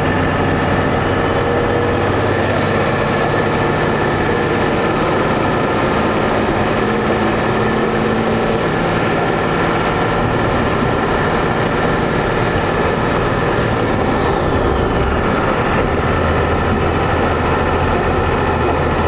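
Cummins diesel pickup engine with compound turbochargers, heard from inside the cab while pulling onto a highway: a steady, loud engine drone with faint turbo whistles that rise and fall. The engine note changes about fifteen seconds in.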